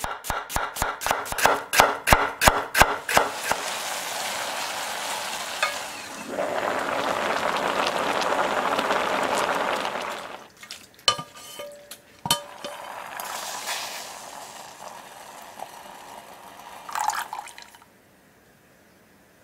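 A chef's knife chopping an onion on a wooden cutting board, quick regular strokes for the first few seconds. Then a steady hiss of sizzling and running water, loudest in the middle, as mussels are rinsed in a colander. A few scattered clicks and clatters follow before it falls near quiet at the end.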